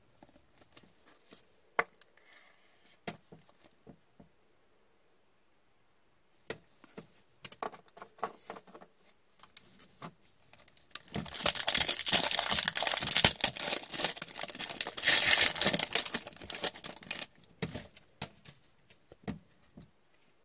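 Light clicks and taps of cards and a plastic toploader being handled, then about eleven seconds in several seconds of loud crinkling and tearing as a hockey card pack's wrapper is ripped open, followed by soft shuffling of the cards.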